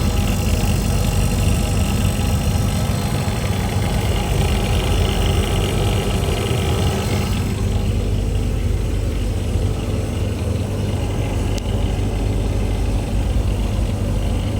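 A compressor running with a steady low hum and drone, the noise being shown as a problem; about halfway through the higher hiss over it drops away, leaving the low hum.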